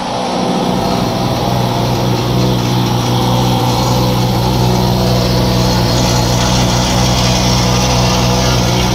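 A motor running steadily: a continuous mechanical drone with a low hum and a hiss above it.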